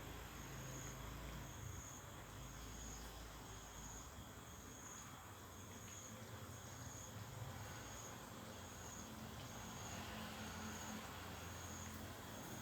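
An insect chirping steadily, a short high-pitched chirp about once a second, over a low steady rumble.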